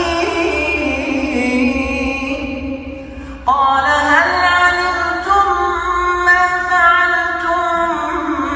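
A man's voice reciting the Quran in a slow, drawn-out melodic style, holding long notes. The first phrase fades out, and a new one begins sharply about three and a half seconds in.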